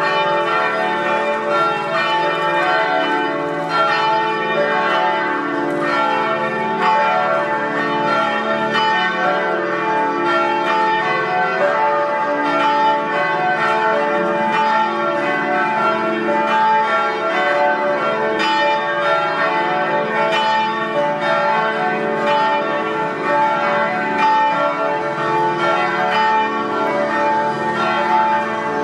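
Church bells pealing: several bells ringing continuously, their strikes following quickly and overlapping.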